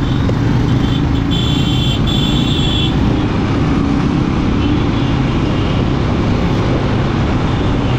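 Royal Enfield Scram 411's single-cylinder engine running steadily while the motorcycle is ridden, mixed with wind and road noise.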